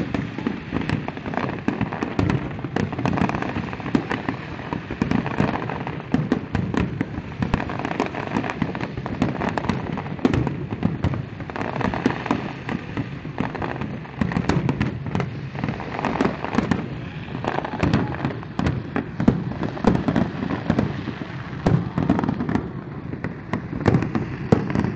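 Fireworks display: rapid, continuous bangs and crackling of many shells going off in close succession.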